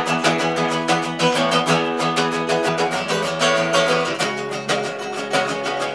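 Two acoustic guitars strumming chords in a steady rhythm: the instrumental intro of an acoustic punk song, with a chord change about four seconds in.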